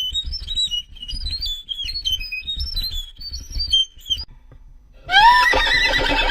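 A high, thin whistled tune of short notes stepping up and down for about four seconds, then after a brief pause a horse neighing, a loud wavering whinny that starts about five seconds in.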